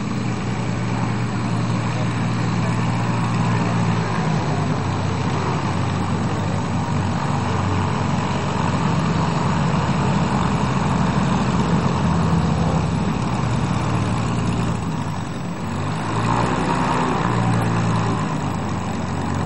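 Zlín Z-50 aerobatic planes' six-cylinder Lycoming piston engines running at low taxi power, propellers turning, with a steady drone. Near the end the engine note drops briefly and then picks up again.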